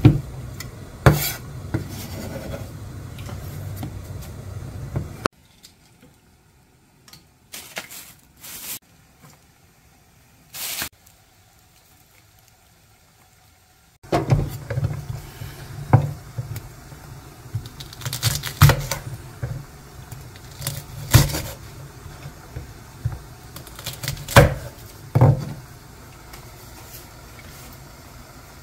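Chef's knife cutting greens and a green chili on a wooden cutting board: irregular sharp knocks of the blade against the board over a steady low hum. A quieter stretch in the middle holds only a few isolated knocks.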